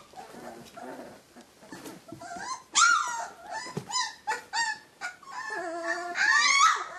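Three-week-old Rhodesian Ridgeback puppies crying in short high-pitched cries that bend in pitch, faint at first and louder from about three seconds in, with a longer wavering cry near the end.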